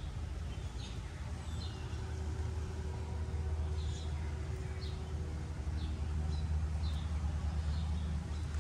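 Outdoor background: a steady low rumble, with small birds giving short high chirps every second or so.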